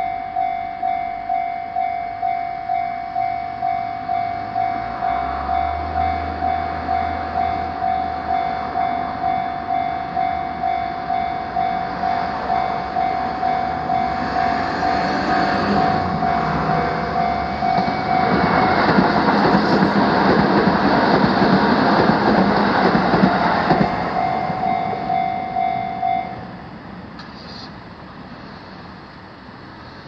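Japanese railway level-crossing warning bell ringing in a steady, evenly repeated ding while a Shin-Keisei Electric Railway train runs through the crossing. The train noise builds past the middle and is loudest from around two-thirds of the way in. Shortly after the train noise fades, the bell stops, leaving faint street noise.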